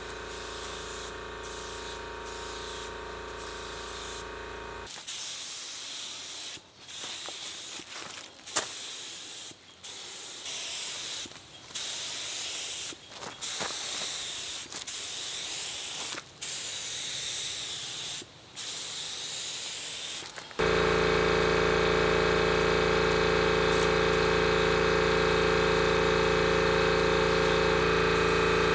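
Compressed-air paint spray gun hissing in repeated bursts of one to two seconds as the trigger is pulled and released. About twenty seconds in, a loud, steady air-compressor motor drone starts abruptly and runs on.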